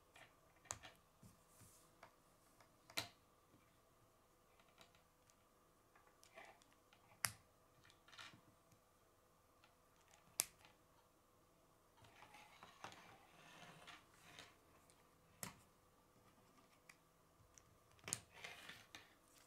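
K'nex plastic rods and connectors snapping together, about six sharp clicks several seconds apart, with softer handling and rubbing of the plastic pieces between them.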